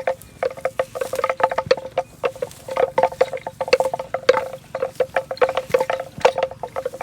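Bell hung on a grazing cow clanking irregularly, several quick strikes a second, each with a short ringing tone, as the cow moves its head to eat grass.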